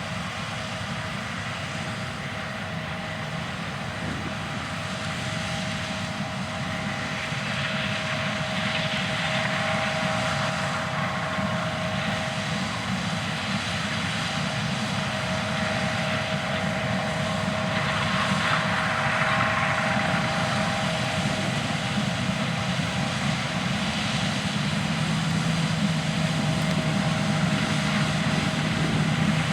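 John Deere S670 combines running while harvesting corn: a steady mechanical drone with a steady whine, slowly growing louder, and a lower hum joining near the end.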